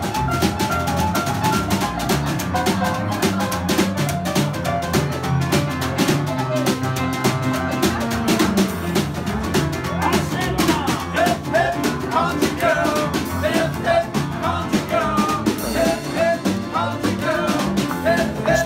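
A small acoustic band playing live: a snare drum struck with sticks in a fast, busy rhythm, an upright double bass plucked underneath, and a bending melody line on top that comes forward about ten seconds in.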